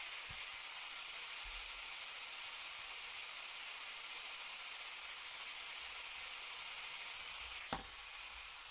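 Greenworks cordless heat gun blowing: a steady hiss of air with a thin, steady high whine over it.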